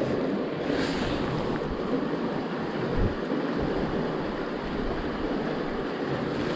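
Steady rush of river water pouring among big rocks, with a single soft bump about three seconds in.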